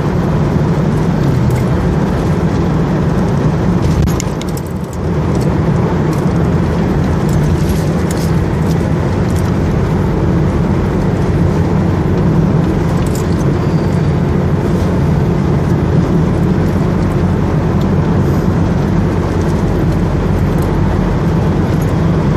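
Steady engine and road noise of a car cruising at speed, with a short drop in level about four to five seconds in and a few faint light clicks.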